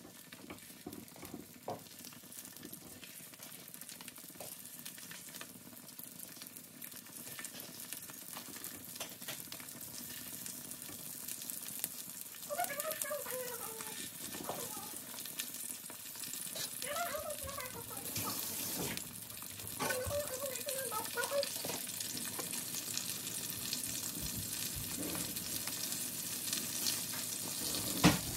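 Food sizzling in a hot frying pan: a crackling hiss full of tiny pops that grows steadily louder. A few short wavering voice-like tones come in partway through.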